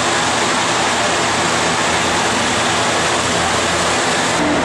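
Large barn circulation fans running: a steady, even rushing noise, with faint voices under it.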